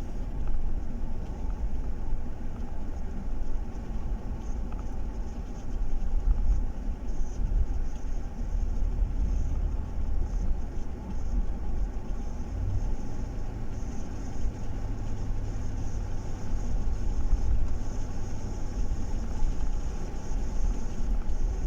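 Inside the cabin of a 2012 Chevrolet Tahoe with its V8 engine on the move: a steady low engine and road rumble, with a deeper drone joining about halfway through. The engine runs smoothly, without the misfire stutter and jerking that a spark plug installation error had caused.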